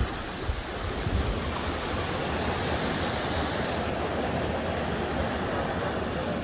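Whitewater rushing and churning down a drop in a rocky stream channel, a steady rush of water, with wind buffeting the microphone in low thumps.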